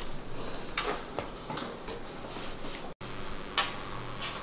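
A few soft, scattered taps and clicks from a large cardboard LEGO set box being handled, over a faint low steady hum.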